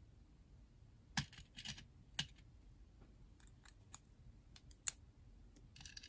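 Irregular small metallic clicks and ticks of tweezers and brass lock pins being handled at a pin-tumbler lock cylinder plug while it is re-pinned. The sound is faint, with a few sharper clicks spread through.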